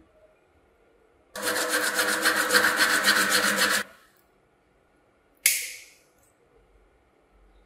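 A cut-off plastic bottle-neck ring rubbed rapidly back and forth on sandpaper for about two and a half seconds. Later comes a single sharp snip as side cutters bite through the clear plastic ring.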